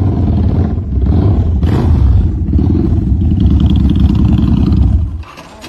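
Motorcycle engine running loud and low while the bike is ridden, then stopping suddenly about five seconds in.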